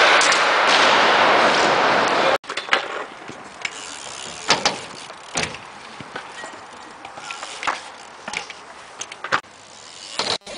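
BMX bike riding on skatepark ramps: a loud rushing noise for about the first two seconds cuts off abruptly, followed by about eight sharp knocks and clacks spread a second or so apart as the bike's tyres and frame hit and land on the ramps.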